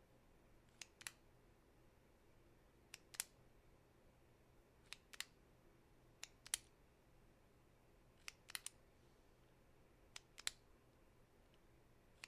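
Retractable click pen being clicked repeatedly: six quick double clicks, spaced about two seconds apart.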